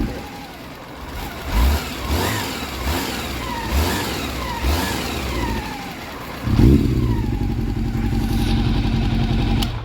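Honda CB400 Super Four's inline-four engine running, revved in a series of short throttle blips that each fall back, then a bigger rev about six and a half seconds in and a steady fast idle that stops abruptly near the end. It is running after a valve clearance recheck and still has a tick from the head that the owner likens to cam noise.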